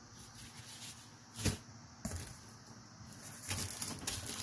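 Cardboard packaging being lifted out of a box, with one sharp knock about a second and a half in and a smaller one shortly after, then the plastic wrap around the safe crinkling under hands near the end.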